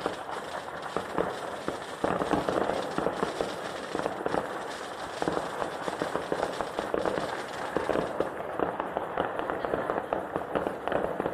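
Fireworks going off: a dense, unbroken crackle of many rapid pops.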